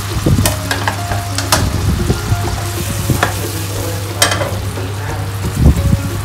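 Mushrooms and meat juices sizzling in a ceramic-coated frying pan, with a few sharp clicks and knocks as the pan is stirred and shifted.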